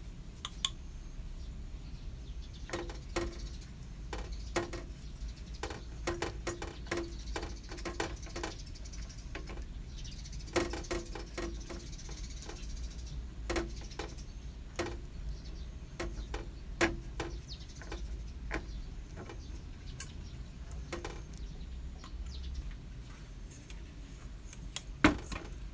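Oil being brushed into the cups of a metal bandros pancake mold: irregular light clicks and taps of the brush against the pan over a low steady hum, with a sharper knock near the end.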